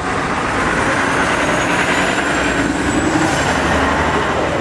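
A road vehicle passing by: a steady rushing noise that swells to a peak a little past the middle and then eases, with a faint high whine rising slowly in the first half.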